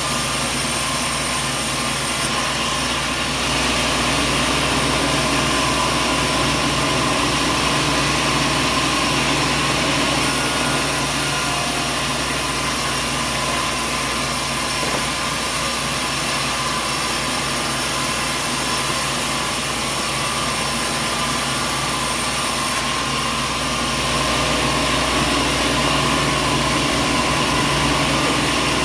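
Sawmill machinery running steadily: a dense, even mechanical noise with a constant hum underneath. It gets slightly louder about three seconds in and again near the end.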